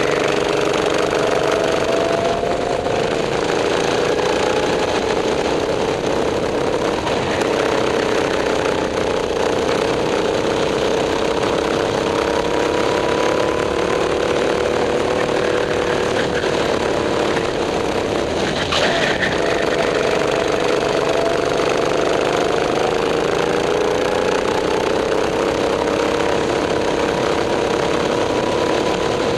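Go-kart engine running hard, heard from onboard, its pitch dropping about three seconds in and again a little past the middle as the kart slows for corners, then climbing back as it accelerates out. A brief click is heard just past the middle.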